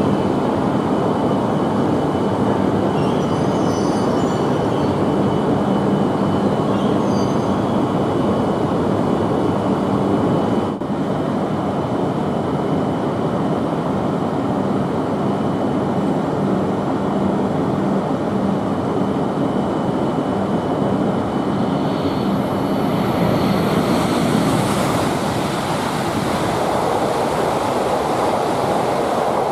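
E5-series Shinkansen trains running on the station tracks: a steady, loud rumble of wheels and traction motors with a low hum, broken by a brief dip about eleven seconds in. From about twenty-two seconds in, a rising rush of air and rail noise builds as a coupled E5+E6 train passes through at speed.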